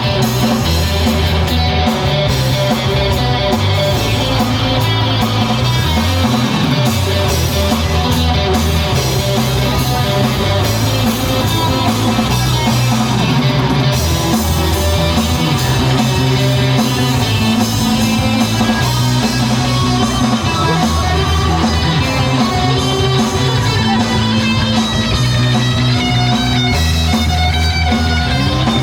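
A band playing a rock song led by guitars, with a bass line stepping between held low notes.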